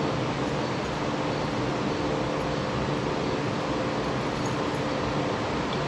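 A steady mechanical drone with a low hum, unchanging throughout.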